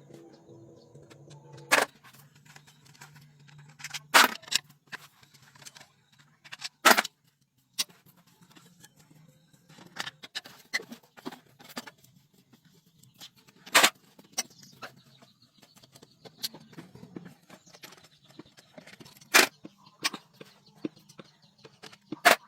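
Irregular metallic clinks and knocks of hand tools and parts being handled during car repair work, with about half a dozen sharp louder strikes among many small clicks over a faint low hum. A steady pitched hum stops about two seconds in.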